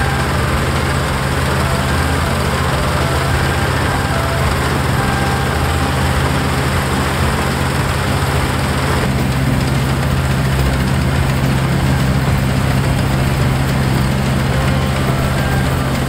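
Iseki rice combine harvester running steadily under load while it reaps and lifts lodged rice stalks.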